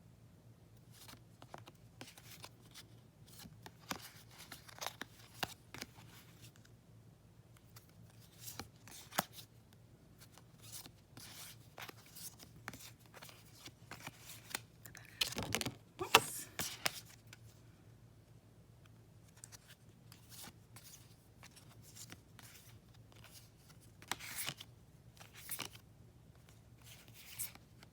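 Oracle cards being handled: scattered soft slides, rustles and taps of card stock, with a louder stretch of rustling about halfway through.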